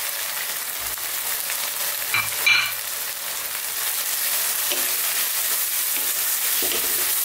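Chopped tomatoes and onions sizzling steadily in hot coconut oil in a non-stick wok on high heat. A short sharp sound comes about two and a half seconds in. After that, a wooden spatula stirs and scrapes the mix round the pan, and the sizzle grows a little louder.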